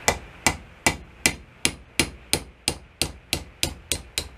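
A steady series of sharp metal taps, about three a second and getting slightly quicker, each with a short ring. The likely cause is a gummed-up diesel injection pump part being worked loose at a bench vise.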